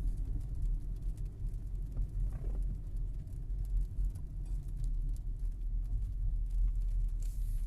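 Car cabin noise while driving: a steady low rumble of engine and tyres on the road, with a short hiss near the end.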